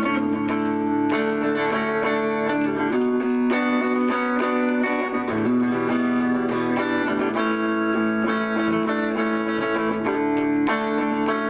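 Electric guitar on a clean amp tone, picking sustained chords and single notes in a slow improvised passage, the chord changing every second or two.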